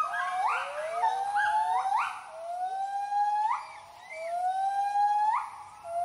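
White-handed gibbons giving their territorial hooting call: a series of long rising hoots, each ending in a sharp upward sweep, about one a second, with two voices overlapping in the first couple of seconds.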